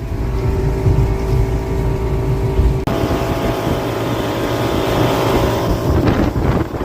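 Motorboat engine running steadily at cruising speed, with rushing wind and water. About three seconds in the sound shifts abruptly to a louder, hissier rush of wind and water over the engine.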